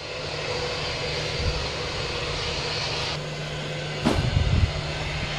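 Steady drone of an aircraft engine running, with a low steady hum under it. About four seconds in, a sharp knock and a brief run of low thumps stand out above it.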